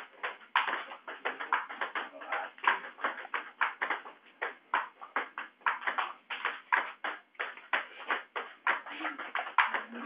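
Table tennis ball clicking in quick succession off the table and the bats during play, a steady run of about three to four hits a second.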